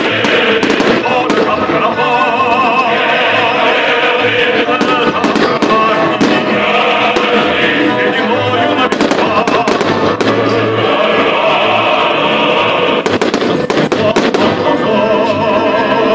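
Fireworks bursting repeatedly, with sharp bangs and crackles, over loud music with singing.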